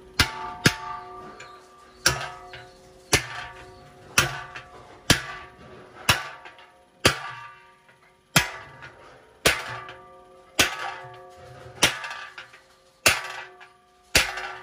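Hammer blows on a steel punch setting rivets through a cast aluminium handle into a large aluminium cooking pot, about one sharp metallic strike a second, the pot body ringing after each blow.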